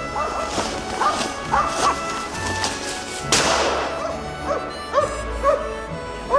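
A dog barking over and over, about two barks a second, over background music with a steady bass beat. A single loud crash about three seconds in.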